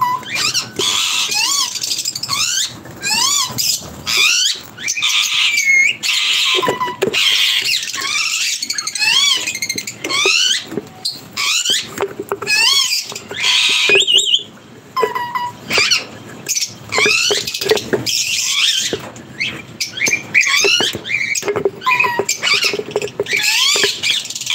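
A group of lovebirds chattering: a dense stream of high-pitched chirps and squeaks, many of them sliding up and down in pitch.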